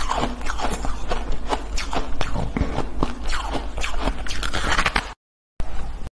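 Close-miked biting and chewing of frozen shaved ice blocks, a fast run of sharp crunches and crackles. The sound cuts out abruptly about five seconds in, comes back for half a second, then cuts out again.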